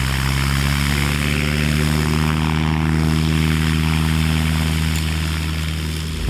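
Light propeller airplane's piston engine running at steady power, an even drone with propeller noise that cuts off suddenly at the end.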